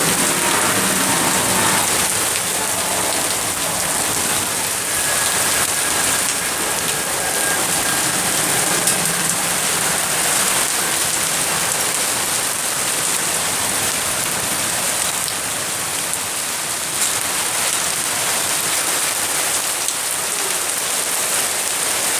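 Hailstorm: hail and rain pelting down steadily in a dense, even hiss.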